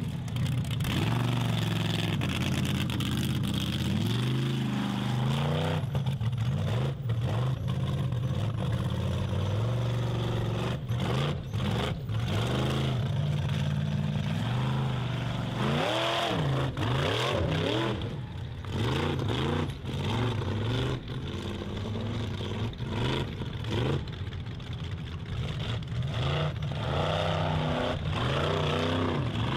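Formula Offroad hill-climb car's engine revving hard and repeatedly, its pitch climbing and falling as the throttle is worked, with many short sharp cracks among the revs.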